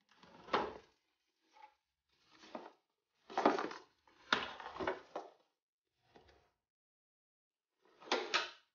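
Handling noise from a tape measure and cardboard: short scrapes and rustles as the tape is laid and slid across a cardboard template, in about seven separate brief bursts.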